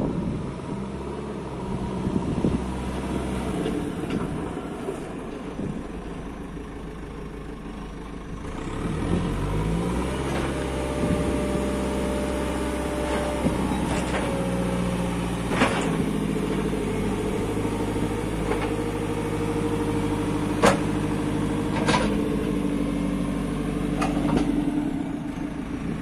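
JCB 3CX backhoe loader's diesel engine running, its revs rising about a third of the way in as the loader arm and 4-in-1 bucket are worked hydraulically. A few sharp knocks come in the second half.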